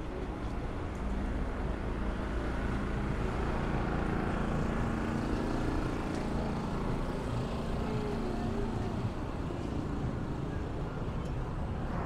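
Street traffic with a car engine running, growing louder through the middle and easing off again as it passes.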